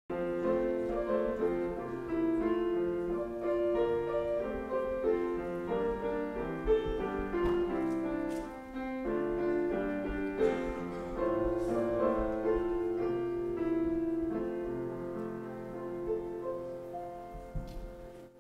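Piano playing a slow instrumental piece of held chords, dying away near the end.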